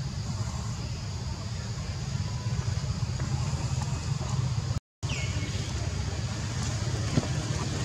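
Steady low outdoor rumble. About five seconds in, the sound cuts out for a moment, then a short high call falls in pitch.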